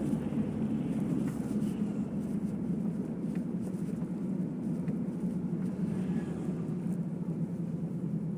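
Steady low rumble and road noise of a vehicle in motion, with a few faint ticks and rattles.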